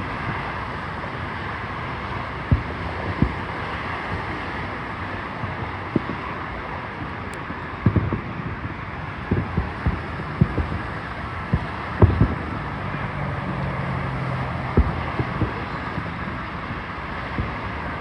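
Distant fireworks shells bursting as irregular low booms, about a dozen, over a steady background rumble. They come thickest in the middle, and the loudest lands about twelve seconds in.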